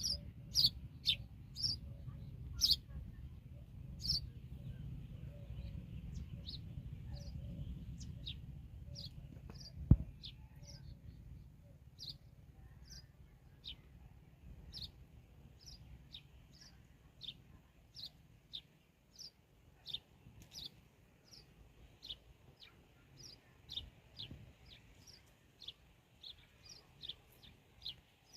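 Sparrows chirping: short high chirps repeated once or twice a second, with a single sharp knock about ten seconds in.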